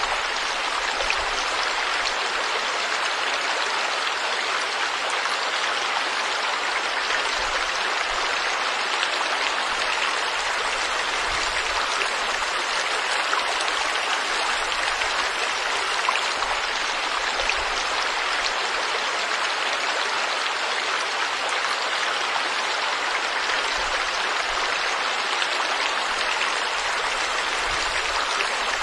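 Forest stream flowing steadily, an even rushing water noise with small splashes and ticks.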